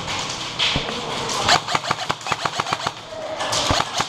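Airsoft gunfire: a rapid string of sharp shots, about seven a second, for roughly a second and a half. A few more shots and a thump follow near the end.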